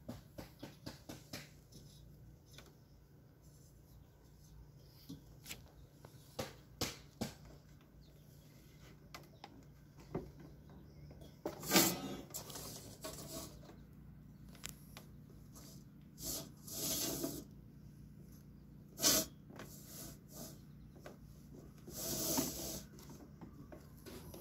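Wooden strip scraping as it is pushed into a steel fence top rail, in several short rubbing strokes, with light clicks at first and one sharp knock of the metal tube being handled.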